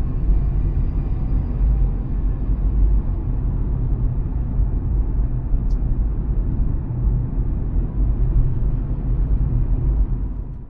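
Steady low road and engine rumble heard inside the cabin of a Daihatsu Atrai van on the move, starting and stopping abruptly.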